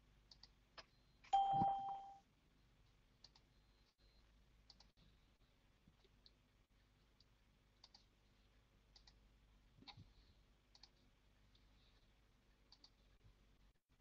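A single short electronic chime from a video-call app, about a second and a half in, lasting under a second, followed by faint scattered clicks.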